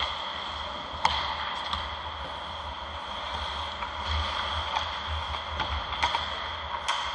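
Ice hockey play: skate blades scraping the ice and several sharp clacks of sticks and puck, the loudest about a second in, over steady rink noise.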